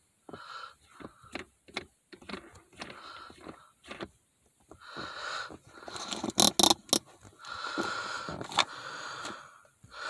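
Plastic Dragon Ball shift knob being screwed by hand onto a car's threaded shift lever: scraping and rubbing with scattered sharp clicks, the loudest clicks about six to seven seconds in.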